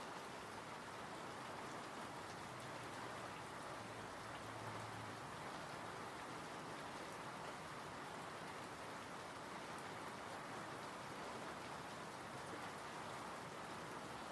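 Calm rain falling steadily: an even hiss of many drops.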